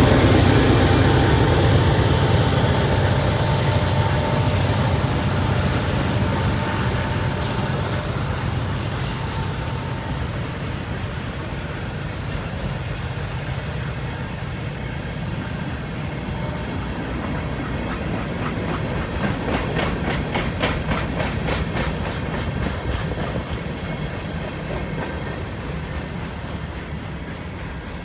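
A Union Pacific freight train's diesel locomotives going by, their heavy engine rumble fading over the first several seconds as they move off. It is followed by the steady rolling of freight cars: gondolas, covered hoppers and tank cars. About two-thirds of the way through comes a run of quick clickety-clack from the wheels over the rail joints.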